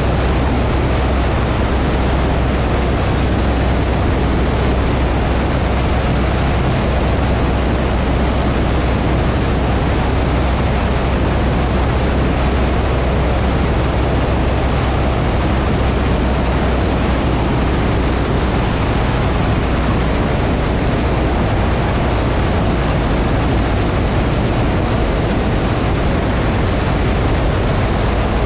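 A Cessna 172's piston engine and propeller in flight, a steady, unchanging drone with a low hum, mixed with the rush of air.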